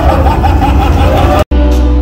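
Background music: a song with a wavering sung melody over guitar cuts off abruptly about one and a half seconds in, and a different, calmer track of held notes starts straight after.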